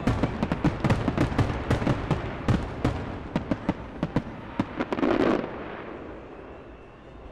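Aerial fireworks going off: many sharp bangs in quick succession, with a dense crackling burst about five seconds in, after which the bangs stop and the sound falls away.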